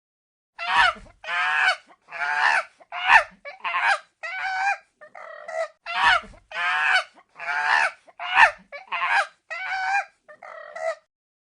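Chimpanzee calls: a run of about fifteen short, pitched calls, one or two a second, some wavering in pitch.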